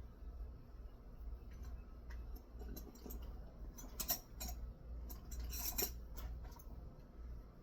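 Hand tools and small metal parts clinking and clicking as they are handled, with the sharpest clicks about four seconds in and again near six seconds, over a low steady hum.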